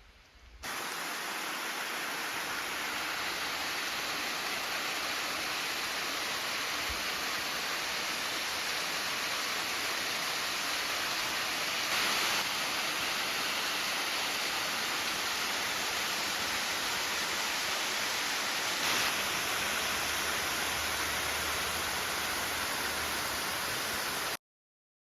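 Waterfall: a steady rush of falling water that starts abruptly about half a second in and cuts off suddenly near the end.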